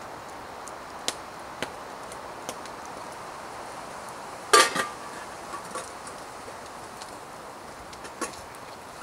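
A dog eating dry food from a metal bowl, with scattered light clicks of kibble and teeth against the bowl. About halfway through comes one loud metallic clatter with a short ring as metal camp gear is handled.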